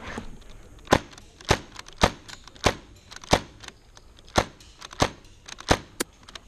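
MK23 airsoft pistol built into a 3D-printed RM277 carbine body firing single shots: about nine sharp pops, roughly every half second or so, with one longer gap near the middle.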